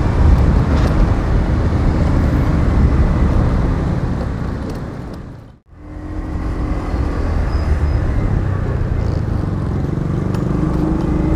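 Honda scooter under way: steady engine, road and wind noise from the moving machine. It fades to almost nothing at a cut about halfway through, then comes back as the ride resumes.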